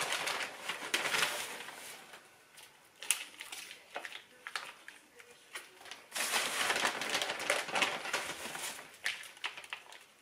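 Potting soil being scooped and pressed into a flowerpot: gritty rustling and crunching in bursts with small clicks, dying down about two seconds in and picking up again around six seconds.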